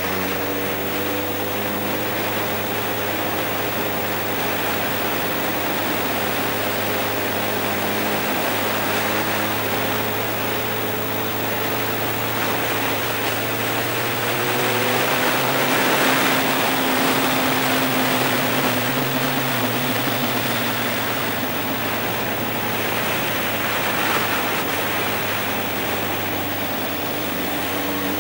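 Motorcycle engine running while the bike is ridden, under heavy wind rush on the microphone. The engine note climbs slowly as the bike pulls along, the wind is loudest around the middle, and the note settles lower near the end as the bike slows.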